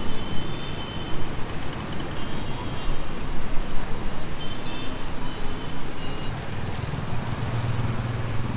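Steady city traffic noise, with a low engine drone from vehicles close by near the end.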